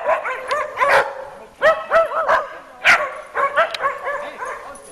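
Dogs barking and yipping in a quick series of short, high calls.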